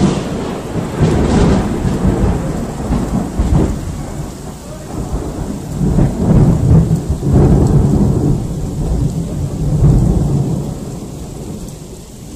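A loud thunderclap breaks suddenly and rolls on as a low rumble that swells in several waves over falling rain, dying away near the end.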